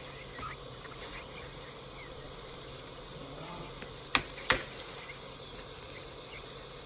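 Handheld heat gun blowing steadily as it softens the plastic rivets that hold a laptop keyboard's metal backing plate. A little past the middle come two sharp clicks about half a second apart.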